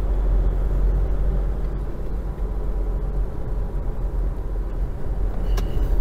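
Car driving along, a steady low rumble of engine and tyres on the road. A short click near the end.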